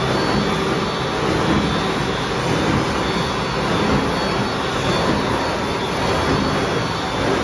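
A nine-blade paper straw making machine running: a steady, dense mechanical noise.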